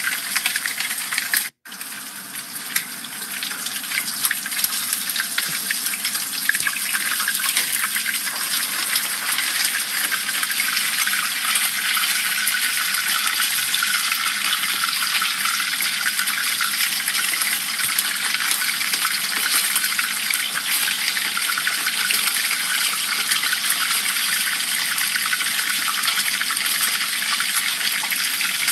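Dorado fish pieces deep-frying in hot oil in a pan: a steady sizzle of bubbling oil. The sound drops out briefly about a second and a half in.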